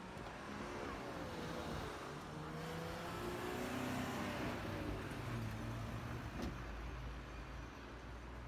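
A minibus drives past close by, its engine note swelling and bending in pitch, loudest about four seconds in, then fading as other cars move through the junction.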